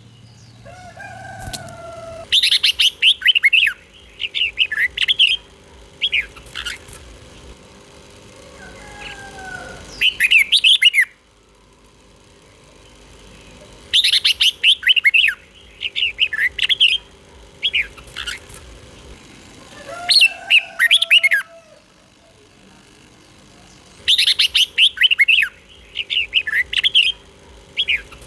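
Red-whiskered bulbul singing: bursts of quick, bright, chirpy whistled phrases, each a second or a few seconds long, repeated every few seconds with short pauses. Softer, lower gliding whistles sound in the gaps between phrases.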